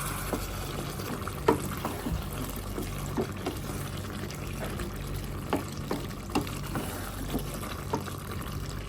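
Potato and capsicum curry simmering in a pot: irregular small bubbling pops, about one every half second to second, over a steady low hum.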